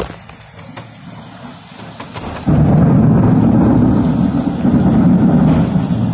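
Heavy rainstorm: steady rain hiss, then about two and a half seconds in a sudden loud, low rumble that keeps on to the end.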